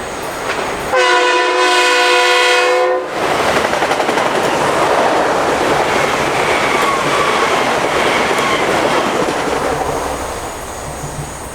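A train sounds its horn in one blast of about two seconds, then passes close by at speed with loud rushing wheel and rail noise that fades near the end.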